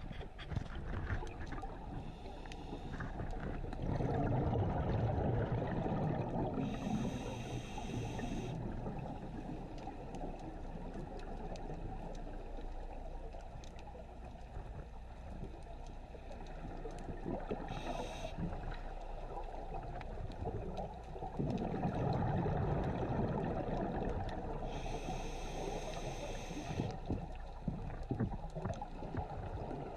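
Underwater scuba breathing picked up through a camera housing: a regulator's hiss on the inhale and bubbling, gurgling exhalations, the two biggest exhales about 4 and 22 seconds in.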